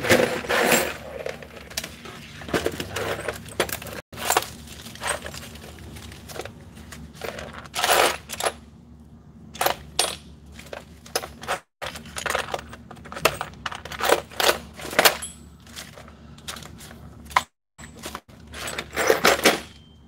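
Loose steel nuts, bolts and washers clinking and rattling in a plastic parts tray as a hand rummages through them. The sound comes in clusters of clicks with short pauses between.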